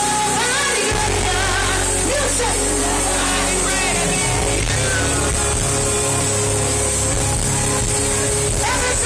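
A woman singing a gospel song live into a microphone with a band behind her, heard from the audience on a phone. The bass comes in about a second in.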